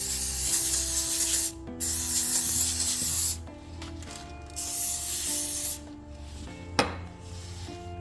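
Aerosol cooking spray hissing in three bursts of about a second and a half each, with a sharp click near the end.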